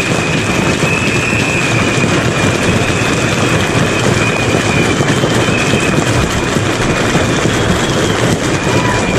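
Loud, steady din of a large picketing crowd, with a held high tone over it that breaks off and resumes several times.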